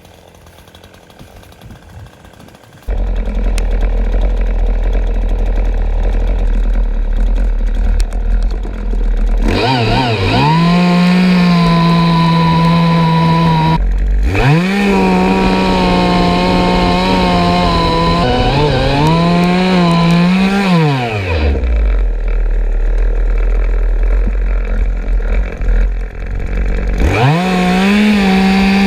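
Craftsman 18-inch two-stroke gas chainsaw revving up to full throttle and holding it in long bursts, dropping back to idle between them; this happens three times, the last starting near the end. The first few seconds are quieter, before the saw's sound comes in loudly.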